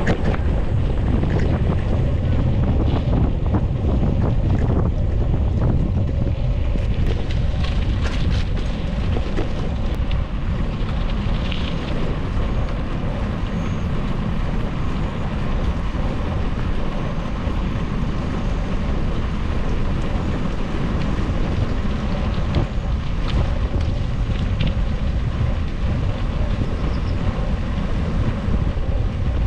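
Wind buffeting an action camera's microphone while cycling: a loud, steady low rumble with a few faint clicks.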